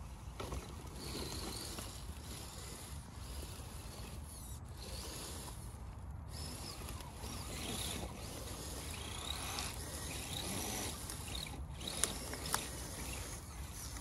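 Small electric motors and gearboxes of RC crawler trucks whining up and down with the throttle as the trucks climb over a log, tyres crunching and rustling through dry leaves, with two sharp clicks near the end.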